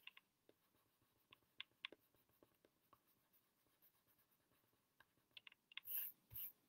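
Faint scratching and light ticks of a coloured pencil shading on paper, then a soft brushing as a hand slides across the paper near the end.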